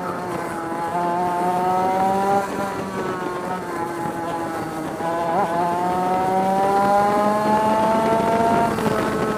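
Historic 100cc two-stroke kart engine at racing speed, recorded onboard. Its pitch climbs steadily as it accelerates, drops briefly about five seconds in, climbs again and falls near the end as the throttle comes off.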